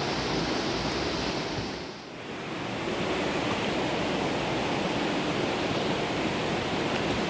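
Rushing river water, a steady full hiss that dips briefly about two seconds in and then comes back as before.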